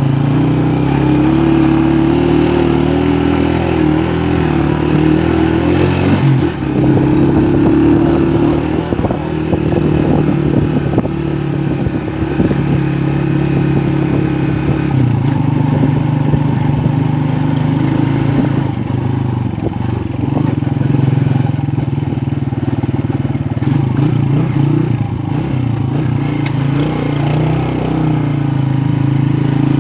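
Motorcycle engine running steadily and loud, its pitch stepping to a new level a few times, with some rattle and clatter.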